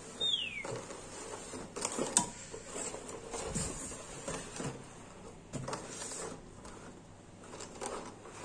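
Paperboard trays slid out of a cardboard sleeve box and set down, with scraping, rustling of their clear plastic lids and light taps. The sharpest tap is about two seconds in, and a short falling squeak sounds near the start.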